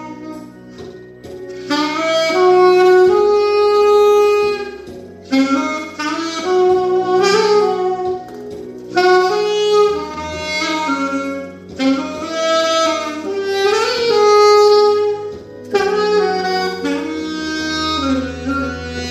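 Saxophone playing a slow melody in phrases of held notes with short breaks between them, over a backing accompaniment with steady low notes. It is a test play of the saxophone after a repair for a fault in how it played.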